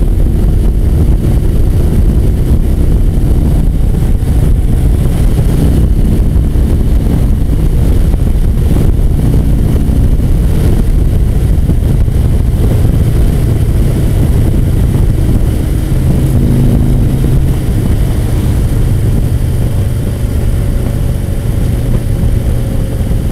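Touring motorcycle's engine running steadily at highway cruising speed, a low drone mixed with rushing air noise.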